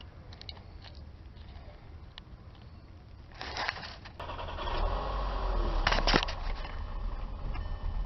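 Handling noise from multimeter test leads and wiring being moved at a fuel pump module connector: light scraping and crackling, two loud clunks about three and a half and six seconds in, and a low rumble building in the second half.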